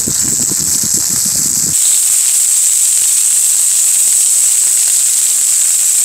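Pork belly sizzling on a hot grill grate: a loud, steady bright hiss. A lower crackling layer underneath cuts off abruptly just under two seconds in.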